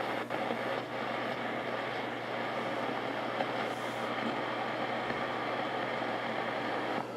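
Steady shortwave static hiss from a JRC NRD-545 DSP receiver in AM mode as its tuning knob is turned up through the 13 MHz (22-metre) band, with no station coming through.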